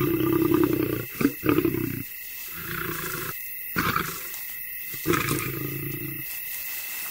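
Big cat growling: a run of about six low calls, each half a second to a second long, with short breaks between them.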